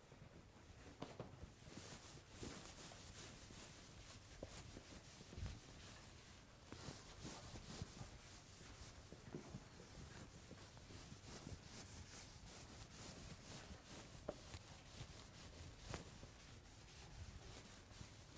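A sponge wiping across a chalkboard in repeated faint strokes.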